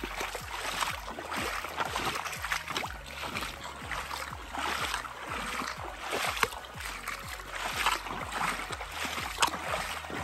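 Legs wading through a knee-deep forest river, the water sloshing and splashing with each stride in an uneven rhythm of roughly one surge a second.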